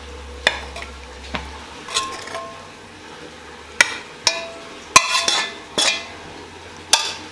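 Metal spoon and wok knocking and scraping against a plate as chilli sausages are served out: a series of sharp clinks, some ringing briefly, the loudest about five seconds in.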